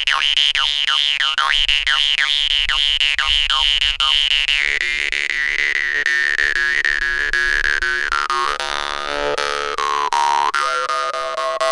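Stainless steel and bronze jew's harp (vargan) played with rapid plucks over a steady twanging drone. The overtone melody swoops quickly up and down for the first few seconds, then holds a high whistling note that glides slowly downward, rising again near the end.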